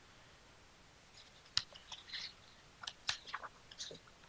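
Quiet handling noise at a lectern picked up by the podium microphone: a scatter of light clicks and short rustles, as of papers being moved, starting about a second and a half in.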